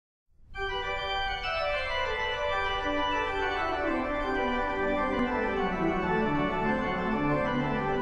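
Organ music: sustained, held notes starting about half a second in, with the melody line stepping steadily downward in pitch.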